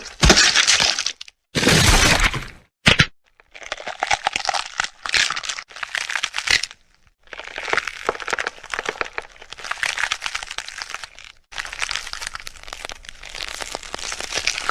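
A sequence of hit and gore sound effects. There are three loud, sharp hits in the first three seconds. After that come three longer stretches of dense crackling and crunching, with short silences between them about seven and eleven seconds in.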